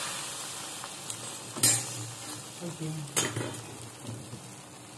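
Egg paratha sizzling on a cast-iron tawa, the egg side face down after the flip, a hiss that slowly fades. A metal spatula clicks sharply against the paratha and pan twice, about a second and a half apart.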